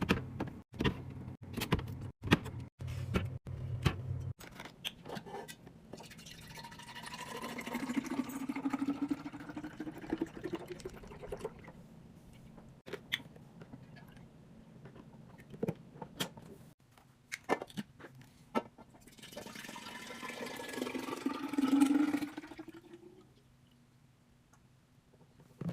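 Liquid poured into a container twice, each pour rising in pitch as the container fills, with sharp clicks and clatter of containers and lids being handled before and between the pours.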